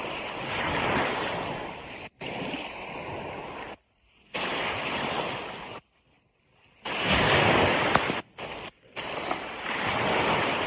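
Ocean surf washing onto a beach: a broad rushing hiss that swells and eases as waves break. The sound drops out abruptly to near silence several times, for a fraction of a second to about a second at a time.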